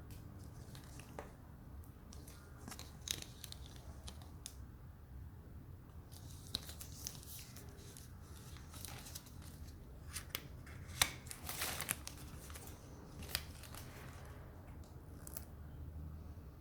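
Packaging being handled and torn open, with crinkling, rustling and sharp clicks that come in irregular bursts, busiest about ten to thirteen seconds in.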